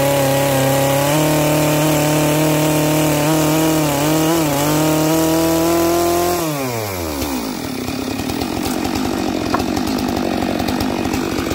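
Stihl MS 462 chainsaw with a 25-inch bar running at high revs, its chain cutting down through a dry Manchurian walnut log. About six seconds in the throttle is released, and the engine note falls smoothly to a rough, steady idle.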